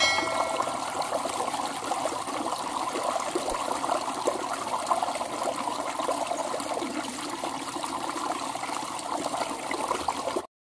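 Shallow stream water flowing and trickling steadily. It cuts off suddenly near the end.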